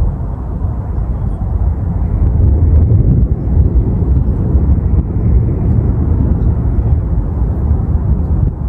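Thunder rumbling, a long low roll that swells a couple of seconds in.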